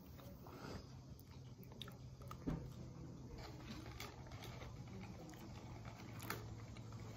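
Faint mouth sounds of a person eating: soft chewing with a few small, scattered clicks, over a steady low hum.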